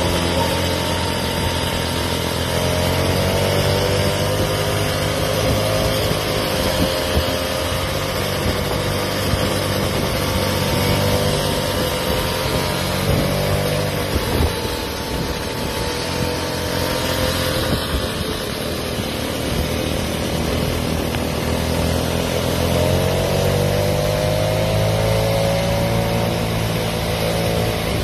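Stand-up scooter motors whining while riding, the pitch rising and falling with speed, over steady wind and road noise.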